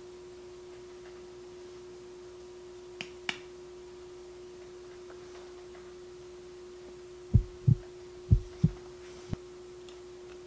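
A steady humming tone, with two faint clicks about three seconds in. Near the end come five loud, deep thuds, mostly in quick pairs like a heartbeat.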